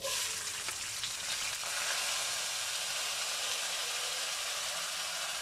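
Soaked, drained rice sizzling as it is spooned into hot oil in a karahi: a steady frying hiss that starts suddenly as the first rice goes in.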